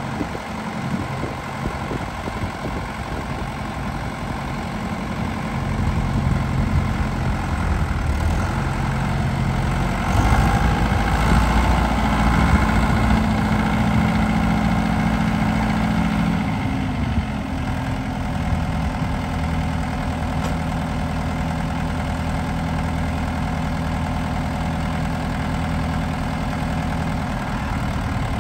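1974 Deutz D7206 tractor's air-cooled six-cylinder diesel running as the tractor is driven. The engine gets louder from about six seconds in and is loudest from about ten to seventeen seconds, then settles back to a steady run.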